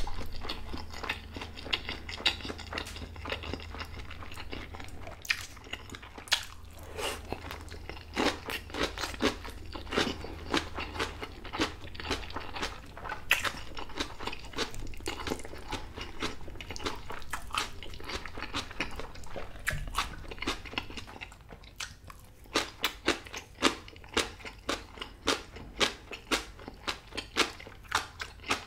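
A person eating close to the microphone, with wet chewing and many sharp crunches and mouth clicks. Near the end the crunching settles into a steady chew of about two crunches a second.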